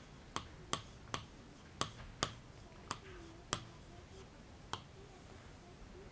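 Stylus tapping on an interactive whiteboard's screen as a word is written by hand: about eight sharp, faint clicks at irregular intervals.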